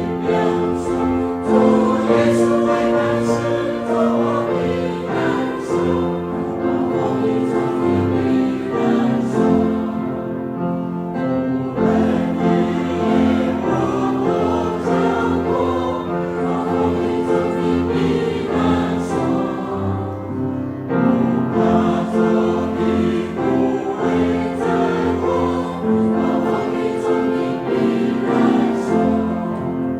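Choir singing a hymn in sustained multi-part harmony, pausing briefly between phrases about a third and two-thirds of the way through.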